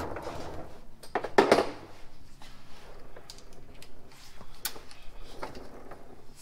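Metal hand tools clinking and clattering in short, irregular knocks, with one louder clatter about a second and a half in.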